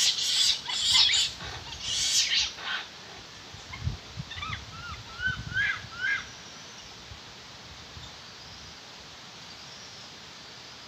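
Capuchin monkey calls: several harsh, hissing screeches in the first three seconds, then a run of short arched chirps from about four to six seconds in, with a few low thuds among them.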